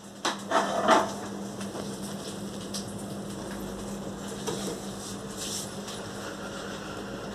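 A few brief knocks and rustles in the first second, then quiet room tone with a steady low hum.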